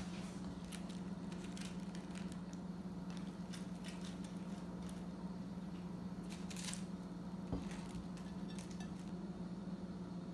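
A steady low hum, with scattered light clicks and taps of small objects being handled over it and one sharper knock about three-quarters of the way in.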